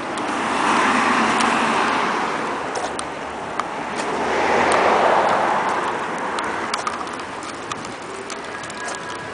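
Road traffic: a car passes by, swelling and fading about a second in, then another around five seconds in, with a few light clicks in between.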